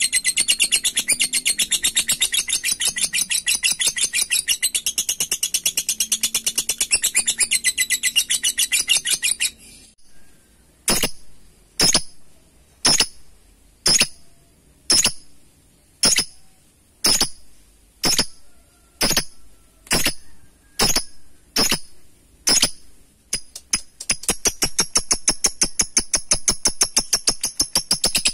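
Lovebird 'ngekek': a long, rapid, high-pitched rattling chatter that breaks off about ten seconds in. It gives way to a run of about a dozen single sharp calls, roughly one a second, and then a second long rapid chatter starts near the end.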